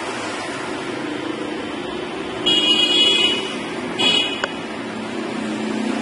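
Steady background street traffic noise, with a high-pitched vehicle horn sounding for about a second, two and a half seconds in, and a shorter toot about four seconds in.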